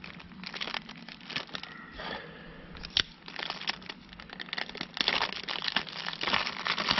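Clear plastic bag crinkling as it is handled and cut open with a pocketknife, with a sharp click about three seconds in. The crinkling grows louder and busier in the last two seconds.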